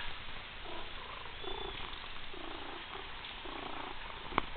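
Domestic cat purring close up, in a rhythmic run of soft pulses. A sharp tap near the end.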